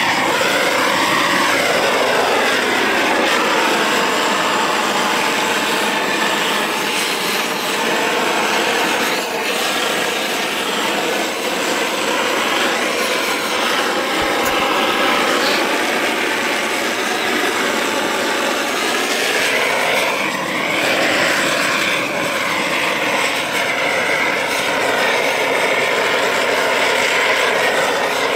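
Gas roofing torch burning steadily while it heats torch-on bitumen roofing felt, a continuous rushing flame noise that wavers slowly.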